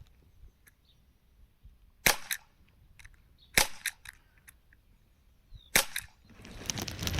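Airsoft replica firing three single shots, roughly one and a half to two seconds apart. Each shot is followed closely by a fainter crack as the BB strikes the cardboard target.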